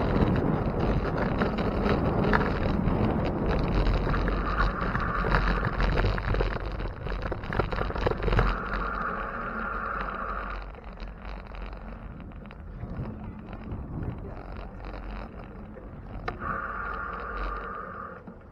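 Wind buffeting the microphone over tyre and street noise while riding a bicycle. The low rumble eases about halfway through, and a higher hiss comes in three times for a second or two.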